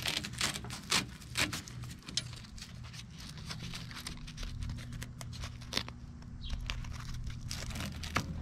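Velcro strap being pulled and pressed around a paramotor cage hoop: a series of short scratchy rustles and clicks, busiest in the first couple of seconds and again near the end, over a steady low hum.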